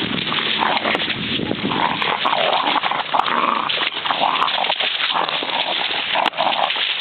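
Puppy vocalizing in a string of short, pitched complaining calls, which the owner takes for him being mad at being neutered.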